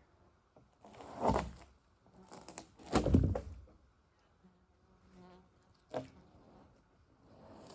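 Two heavy thuds with scraping, about one and three seconds in, as heavy gear is handled, then a single sharp knock near six seconds. A fly buzzes briefly in between.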